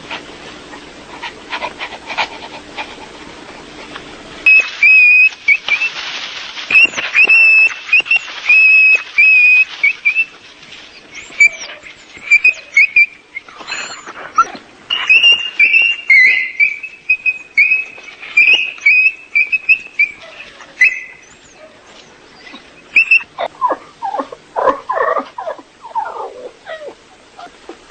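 A dog whining and yelping in a long run of short, high-pitched cries, then lower, rougher yelps near the end.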